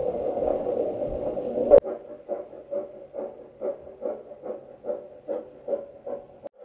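00-scale model steam freight train running past at close range: a steady hum, a sharp click just under two seconds in, then a quieter regular pulsing about two and a half times a second as the train goes by.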